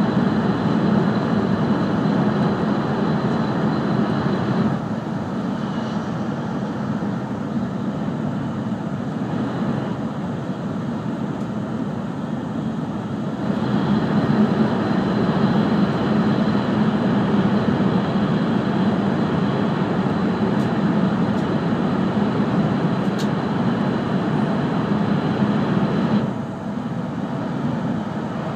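Cabin noise of an E5 series Shinkansen at speed: a steady rushing rumble with a faint high whine. It is louder in the tunnels and drops noticeably about five seconds in and again near the end, when the train runs in the open.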